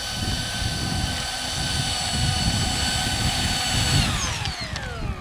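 Twin ducted fans of a radio-controlled model jet running with a steady high whine over a low rumble; about four seconds in the whine falls steadily in pitch as the fans spool down.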